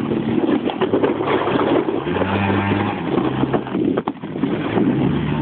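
Moped engine running under load as it tows a Trabant door used as a sled over snow, its pitch rising about two seconds in and dropping again, over a steady scraping and rushing noise.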